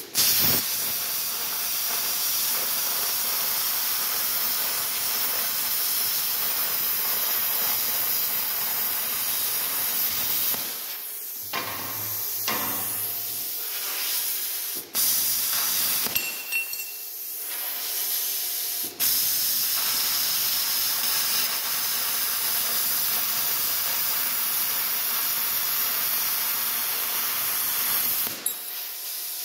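Plasma cutter torch hissing steadily as it cuts quarter-inch plate. The hiss dips briefly a few times, about 11 and 16 seconds in and again near the end.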